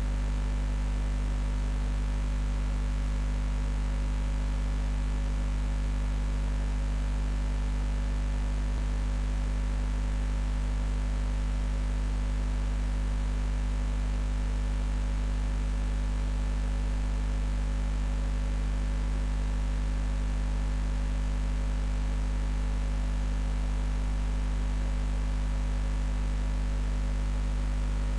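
Steady electrical hum with a stack of steady overtones and a constant hiss, unchanging throughout.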